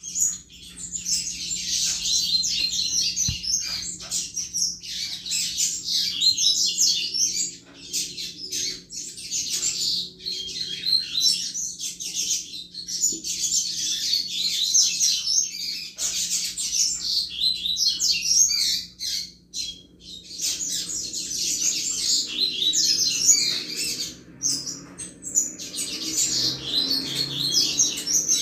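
Double-collared seedeater (coleiro) singing its 'chuva' song: long runs of fast, high twittering notes in phrases of several seconds, broken by short pauses twice.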